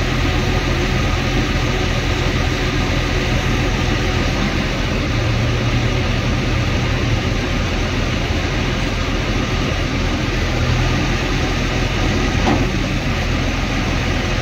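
Heavy vehicle's diesel engine running steadily at a constant speed, a low drone under a broad even noise.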